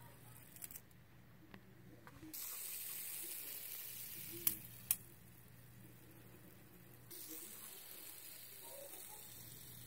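Faint high whirring hiss of a spinning fidget spinner, broken by two sharp clicks about four and a half seconds in, when the hiss stops; the hiss comes back near the end.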